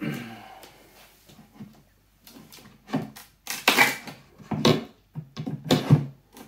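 Nailed wooden wine crate lid being pried up with a flat-bladed screwdriver and hammer claw: a short creak at the start, then a series of separate cracks and scrapes as the wood and nails give way.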